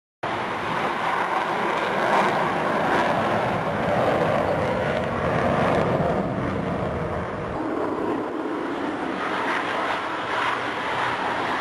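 Jet engine noise from F-16 fighter jets flying low, loud and continuous. It starts abruptly, and the pitch of the noise shifts, dipping lower about eight seconds in.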